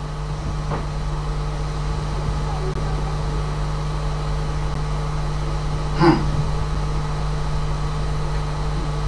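Steady low electrical-type hum with room noise, constant throughout, and one short sound about six seconds in.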